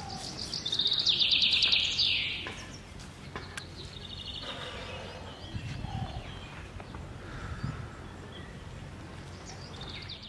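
Birds calling: a loud, rapid chattering call from about half a second to two and a half seconds in, then a shorter call a couple of seconds later, over steady outdoor background noise.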